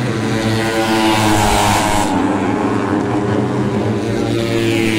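Race motorcycle engines at high revs, the pitch sweeping as bikes pass twice: once about a second and a half in and again near the end.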